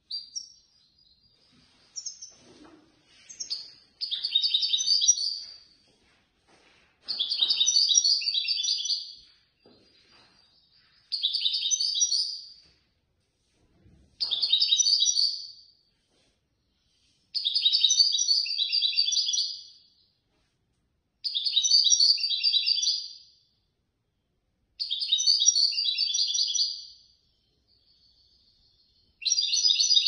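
European goldfinch singing: about eight phrases of rapid, high twittering, each about two seconds long, with gaps of one to two seconds between them. A few short single chirps come in the first few seconds.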